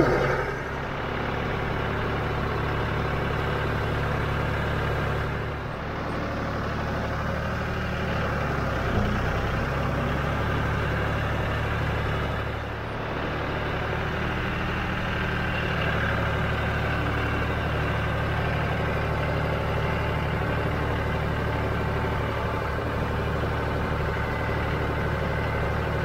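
Compact tractor engine running steadily while the tractor drives with its front loader, carrying a round hay bale. The engine note dips briefly twice.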